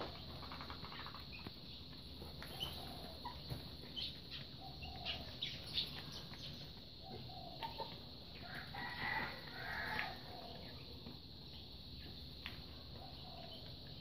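A hen clucking in short low calls as she pecks grain off a concrete floor, among short high chirps and light pecks, busiest about nine to ten seconds in.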